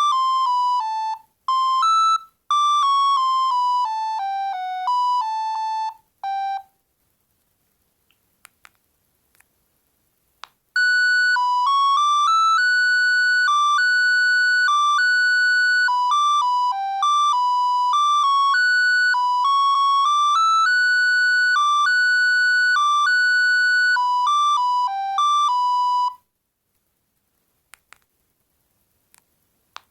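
The Bird S296 mobile phone playing its ringtones, electronic tunes played one note at a time. One tune ends about six seconds in. After a few seconds of quiet with a few faint clicks, a second tune plays for about fifteen seconds.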